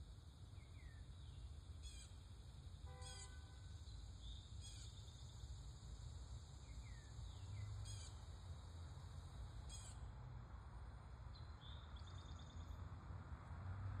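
Songbirds calling in a yard: a string of short, falling chirps with a brief trill about two-thirds of the way in, faint over a steady low rumble of distant traffic.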